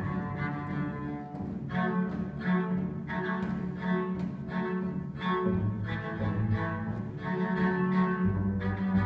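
A group of cellos playing together, bowed in evenly paced notes, about one new note every two-thirds of a second. A deep low part grows strong about halfway through.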